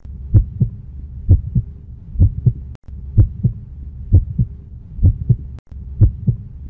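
Heartbeat sound effect: paired low thumps, lub-dub, repeating a little under once a second over a low steady hum.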